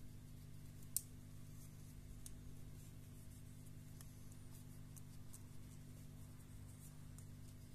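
Faint clicks and light scraping of a thin metal pry tool working the plastic edge of a Plantronics Voyager Edge headset's housing, with one sharp click about a second in and a few softer ones after, over a steady low hum.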